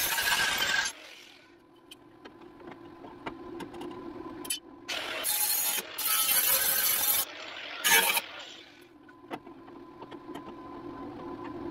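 Cordless angle grinder working the steel front panel of an International Scout. There is a harsh grinding burst for about the first second and three more between about five and eight seconds in. Between the bursts the motor spins freely with a steady hum.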